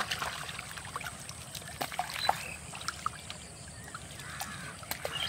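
Pond water splashing and dripping as waders work a fishing net by hand, in scattered small splashes and drips.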